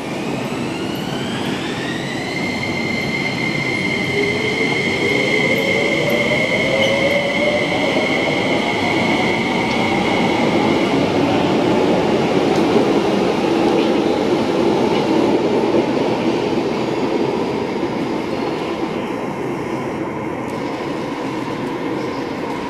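Kinki Sharyo SP1900 electric train accelerating away. Its traction inverter whine rises in pitch over the first couple of seconds and then holds a steady high note, while a lower motor tone climbs over the next several seconds over a continuous running rumble.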